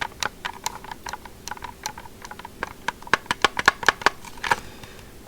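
Irregular plastic clicks and clacks of a Milwaukee M18 Fuel oscillating multi-tool being handled, its loosely fitting battery and housing rattling; the clicks come thickest around the middle.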